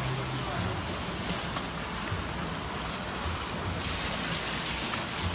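Steady rushing and splashing of water churning in an artificial rocky pool. It turns a little hissier about four seconds in.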